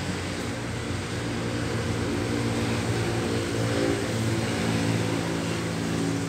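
A motor or engine running with a steady low hum, its pitch shifting slightly about two-thirds of the way in, over a steady background hiss.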